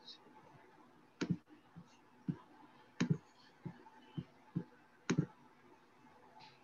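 Sharp clicks at a computer, about ten of them at irregular intervals, some in quick pairs, as a screen share is being set up.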